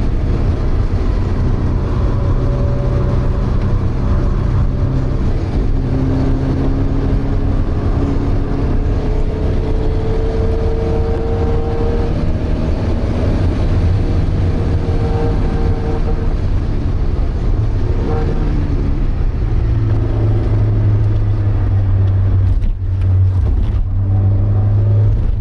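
Porsche 924's 2.0-litre four-cylinder engine running hard at racing speed, heard from inside the cabin. The engine note climbs and falls with the revs and gear changes, then settles lower and steadier for the last few seconds.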